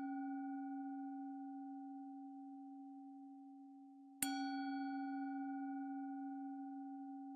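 Singing bowl rung with a strike, its low tone and a few higher overtones ringing long and slowly fading. It is struck again about four seconds in and rings on.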